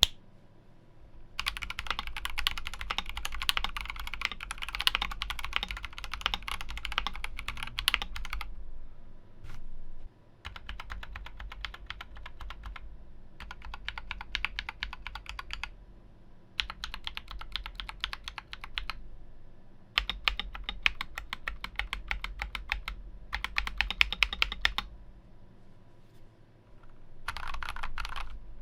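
Typing on a stock Akko 3068B 65% mechanical keyboard, with unlubed Akko Jelly Purple tactile switches under stock ASA-profile keycaps. The typing comes in about seven quick runs of key clacks, each a few seconds long, with short pauses between them.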